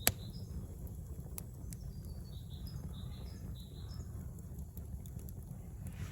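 Small songbird chirping over and over in short, high notes, over a steady low rumble, with a few sharp clicks, the strongest just after the start.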